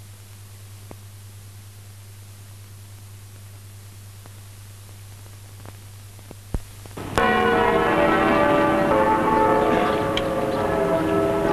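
Faint steady hum with scattered clicks and crackle from an old film soundtrack, then about seven seconds in, bells start ringing loudly and keep ringing.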